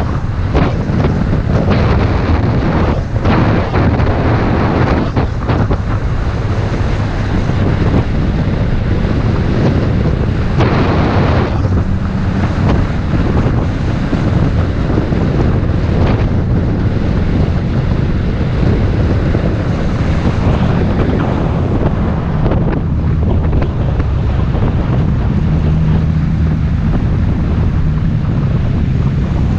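Wind buffeting the microphone of a camera mounted on a moving road bike: a loud, steady rumbling rush with gusty surges during the first half.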